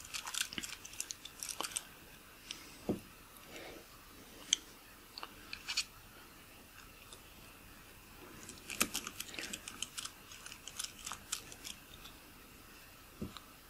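Small metal clicks and scrapes as a precision screwdriver works the tiny screws in the metal barrel of a Nikkor 50mm f/1.4 AI-s lens. Quick runs of ticks come in the first couple of seconds and again in the second half, with a few single clicks between.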